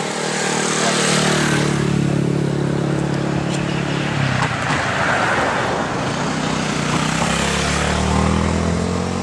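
Road vehicles passing close by: one engine's hum dropping in pitch as it goes past, with tyre noise, and another vehicle coming up near the end.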